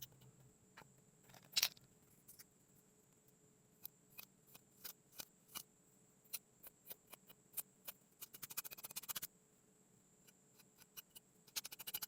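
Kinetic sand being cut and crumbled: faint, scattered soft crackles and ticks, with a dense run of crackling about eight seconds in and again near the end.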